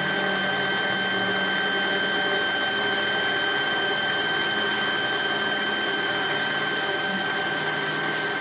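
Mazak CNC lathe's live-tool end mill cutting a slot across the face of a metal bar: a steady machining whine on one high tone with its overtones, over a constant running hum and hiss.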